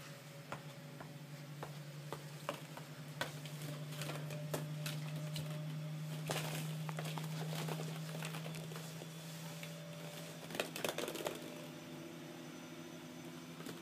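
Hollow plastic ball-pit balls clicking and knocking against each other as a Shetland sheepdog puppy moves through them, in scattered light clicks with louder clusters about six and eleven seconds in. A steady low hum runs underneath.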